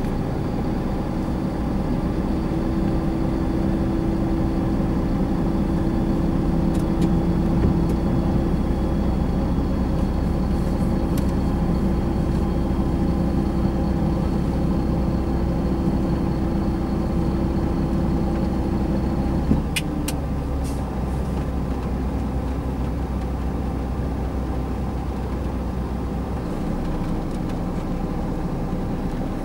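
Sisu truck's Mack E12 480 diesel engine running steadily under a constant load. About two-thirds of the way through there is a sharp click, a steady hum cuts out and the sound drops a little.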